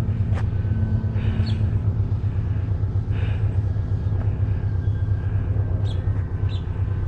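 Steady low rumble of wind buffeting the microphone, with the faint thin whine of distant electric RC planes' motors and propellers drifting slowly in pitch, and a few brief high chirps.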